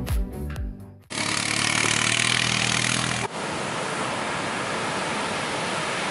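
Background music fades out about a second in. It is cut off by a steady rushing noise of ocean surf breaking at the beach, louder for the first couple of seconds and then settling.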